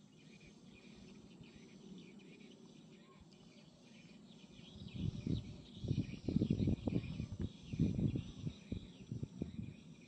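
Faint, steady insect and bird chirping in the background. From about halfway in, irregular low rumbling gusts buffet the microphone, louder than the chirping, and ease off near the end.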